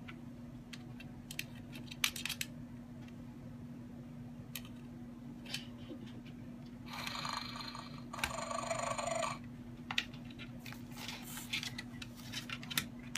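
A cockatoo confronting a toy dinosaur: scattered light clicks and taps, and two short, harsh hissing bursts about seven and eight seconds in, over a steady low hum.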